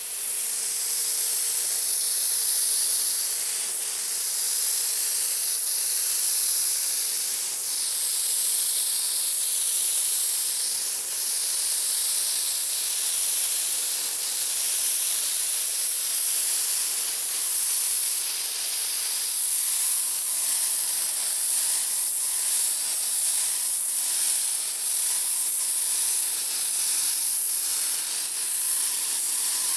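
SATAjet 1000 B RP gravity-feed spray gun hissing steadily as it sprays 2K primer, the rush of air and atomised primer swelling and easing slightly with each pass.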